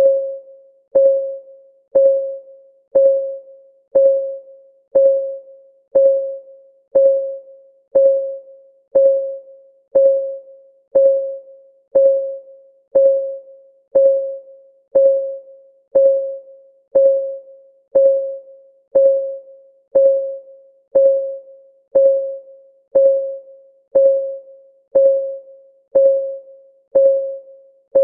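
Countdown timer's clock ticking: one short, pitched tock each second, steady and even.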